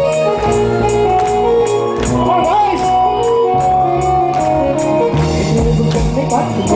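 Live band music through a PA: sustained keyboard chords and electric guitar over steady beats struck on an electronic drum pad, with a voice singing.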